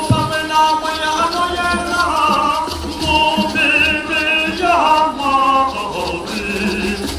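A large crowd of men's and women's voices singing a hymn together, held notes moving in pitch as one.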